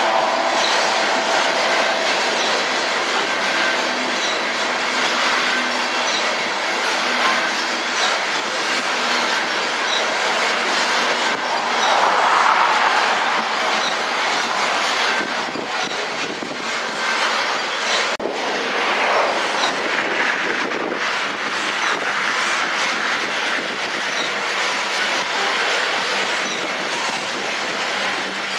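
Coal train of hopper cars rolling past close by: a steady rumble of steel wheels on the rails, with occasional clicks and brief high wheel squeaks. The sound swells about twelve seconds in.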